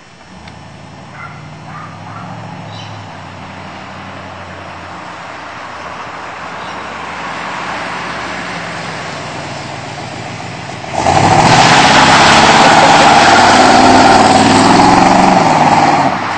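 Chevrolet Corvette C3's V8 engine running as the car drives along the street, growing louder over the first ten seconds or so. About eleven seconds in, a sudden loud rushing noise drowns it out and stops abruptly near the end.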